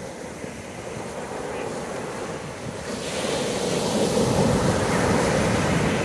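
Ocean surf: waves breaking against boulders and washing up a sandy beach. The rush of water swells about halfway through as a wave crashes on the rocks.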